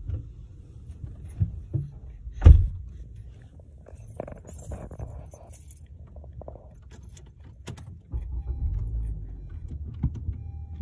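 A car door shuts with a heavy thump, then keys jingle. About eight seconds in, the car's engine starts and settles into a steady low idle, with a thin warning beep sounding in broken stretches near the end.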